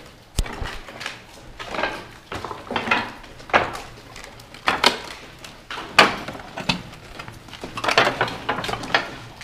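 Footsteps crunching and scraping over rubble and loose paper on a debris-strewn floor, an uneven step every half second to second, with a sharp knock near the start.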